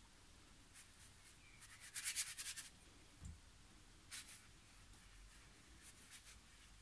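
Faint scratchy strokes of a colouring pencil on drawing paper, with a quick flurry of back-and-forth strokes about two seconds in and a few single strokes later. A soft low thud comes just after three seconds.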